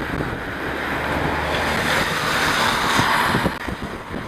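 Rushing wind noise on the microphone while riding, mixed with the hiss of traffic on a wet road. It swells about two seconds in and eases off at about three and a half seconds.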